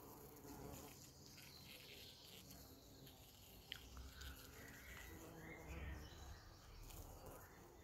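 Faint buzzing of a bumblebee in flight, coming and going, with one short tick about halfway through.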